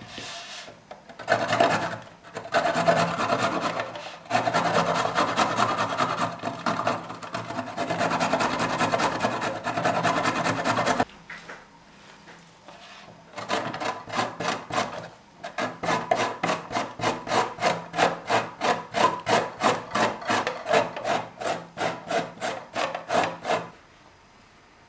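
Carrots being grated on a box grater's metal plate: fast, continuous rasping strokes that cut off suddenly. After a short pause, beetroot is grated on the same grater in slower, distinct strokes, about two or three a second.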